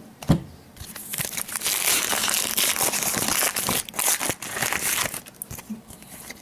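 A trading card pack's wrapper crinkling and being torn open by hand, a dense crackling noise with small sharp clicks that runs for about four seconds and then stops.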